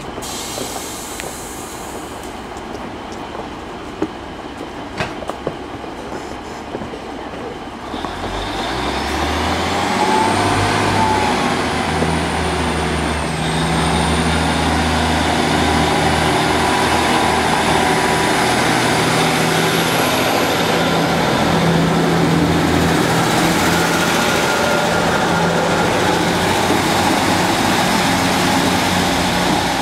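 Class 150 Sprinter diesel multiple unit idling, with a few sharp clicks around four to five seconds in. At about eight seconds its diesel engines open up as it pulls away, a deep steady engine note with a high whine rising over it and staying loud.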